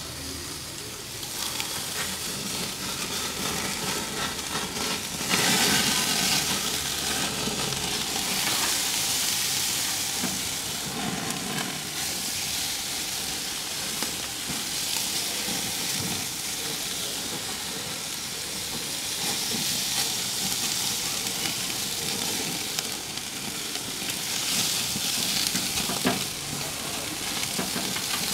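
Marinated chicken tikka and wings sizzling over a hot charcoal barbecue, with louder bursts of sizzling about five seconds in and again near the end as more sauce is basted on. Occasional light clicks run through it.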